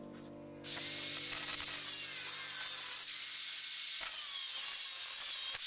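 Angle grinder with a thin cutting disc cutting through scrap sheet steel, a steady grinding that starts suddenly about half a second in.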